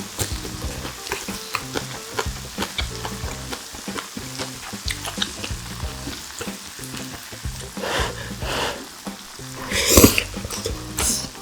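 Pork intestine (makchang) sizzling on a grill, with a steady crackle of small pops and a couple of louder bursts near the end.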